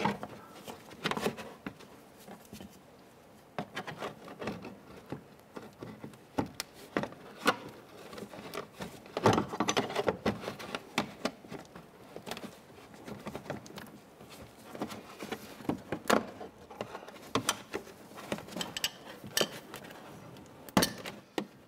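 Plastic trim tool prying at the push-pin retainers behind a plastic wheel well liner, with the liner being handled: irregular light clicks, taps and scrapes, some a little louder about 9, 16 and 21 seconds in.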